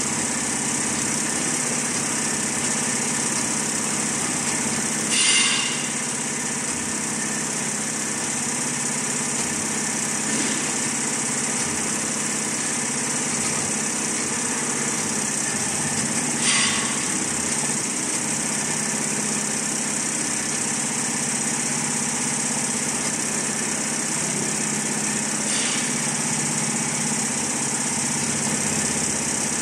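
Richpeace multi-head computerized embroidery machine running steadily as it stitches, a constant mechanical whirr. Two short louder bursts break in, about five seconds in and again about sixteen seconds in.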